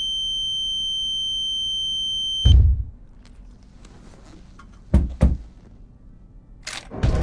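A steady high-pitched electronic tone, cut off suddenly by a heavy thump about two and a half seconds in; then two sharp knocks about five seconds in and another loud hit near the end.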